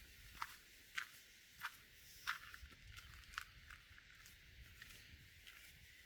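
Footsteps of a walker on a bush track: short sharp steps about one every two-thirds of a second, thinning out to faint ones after about three and a half seconds.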